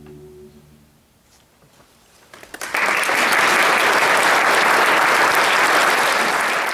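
A choir's final held chord dies away, then after a short hush with a few scattered claps, the audience breaks into full applause about two and a half seconds in.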